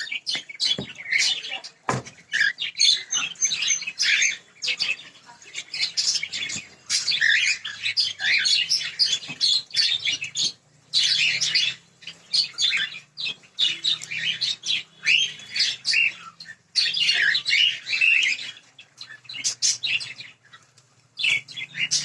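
A flock of caged cockatiels chirping and calling continuously, many short calls overlapping one another.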